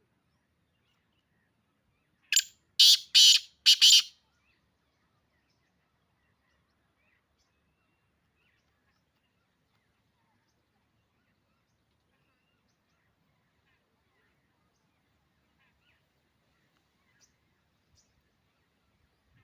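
Black francolin calling once, about two seconds in: a loud, harsh phrase of about five rapid notes lasting under two seconds.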